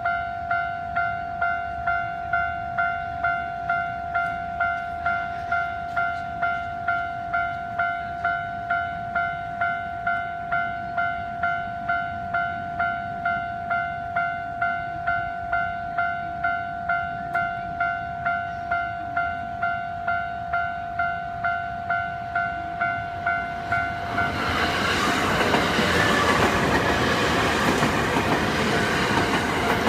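Japanese level-crossing warning bell ringing steadily, about two electronic dings a second. About 24 seconds in, the dings stop being heard and an electric commuter train passes over the crossing, louder, with wheel and rail noise.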